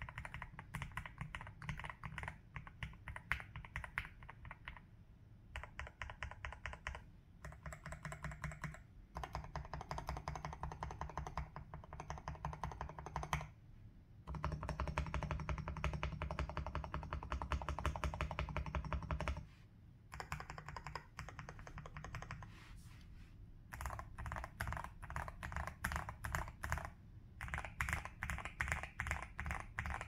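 Zuoya GMK67 mechanical keyboard with hand-lubed Gateron G Pro 3.0 Silver linear switches, tape mod and PBT keycaps, being typed on in quick runs of keystrokes broken by a few short pauses. Around the middle the typing gets faster and denser.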